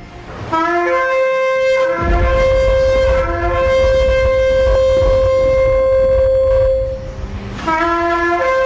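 A shofar (ram's horn) blown in long blasts, each opening on a brief lower note and jumping up to a held higher one. The first blast holds its high note for about six seconds over a low rumble, and a second blast starts near the end.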